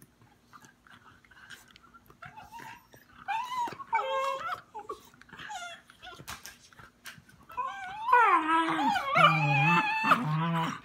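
Dogs play-fighting, vocalizing: short high whines and yips a few seconds in, then a longer, louder run of wavering whining and grumbling through the last few seconds.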